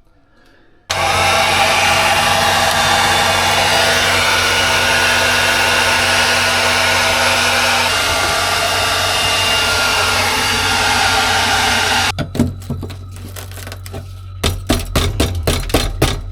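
A handheld hot-air blower runs loud and steady, starting about a second in and switching off about twelve seconds in. It is melting ice built up on a refrigerator's evaporator. A quick series of knocks and clicks follows.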